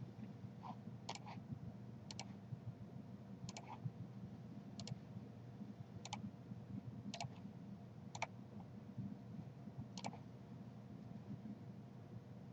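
Computer mouse clicks, faint and sharp, about one a second and some in quick pairs, as a CAD sketch is trimmed and edited, over a faint steady low hum.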